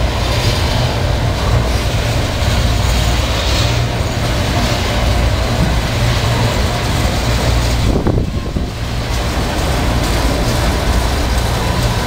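Freight train of enclosed autorack cars rolling steadily past, a continuous rumble of cars and wheels on the rails, with wind buffeting the microphone.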